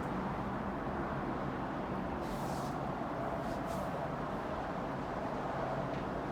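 Steady low rumbling background noise with a faint hum, with a brief soft hiss a little over two seconds in.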